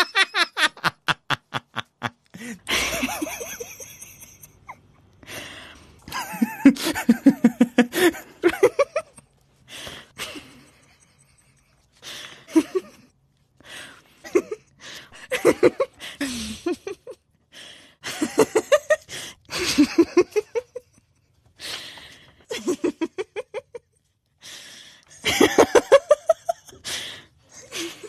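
Repeated bouts of human laughter: quick pulsed 'ha-ha' bursts that come in a dozen or so short runs with brief pauses between.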